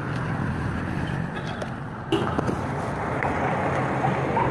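Steady rumble of a motor vehicle running nearby, a little louder from about two seconds in, with a single knock there.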